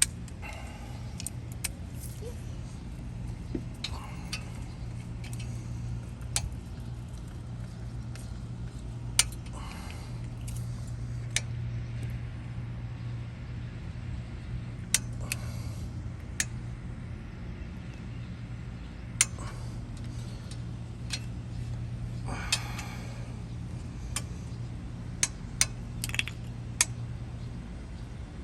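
Metal hand tools and brake hardware clinking and tapping, with scattered sharp clicks and a few short scrapes, over a steady low hum.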